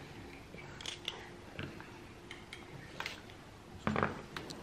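Scattered soft clicks and taps of halved grapes being set down on a plastic plate, the loudest about four seconds in.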